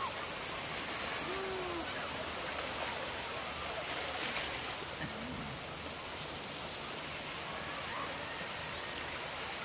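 Small waves washing in over shallow water at the shoreline: a steady hiss of surf, swelling louder as a wave rushes in about four seconds in.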